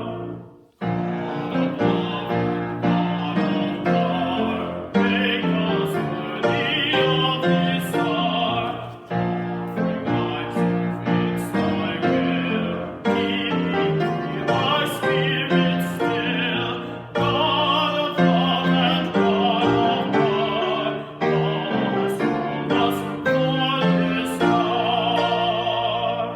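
A solo voice singing with vibrato in a classical style over piano accompaniment. The music drops out for a moment just after the start, then carries on without a break.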